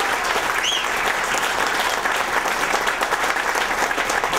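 A crowd applauding: steady, dense clapping.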